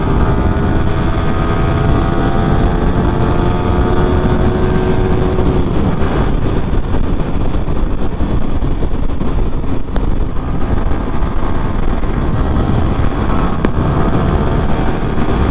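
Yamaha R15 V3's 155 cc single-cylinder engine at full throttle on a top-speed run. Its pitch climbs slowly for the first five seconds or so, then it is buried in wind rush on the microphone at over 100 km/h.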